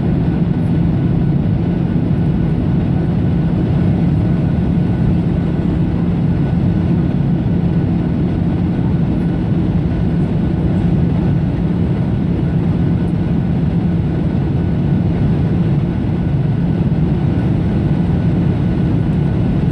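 Steady drone of an airplane cabin in flight: engine and airflow noise heard from inside, low and unchanging, with a faint steady high tone.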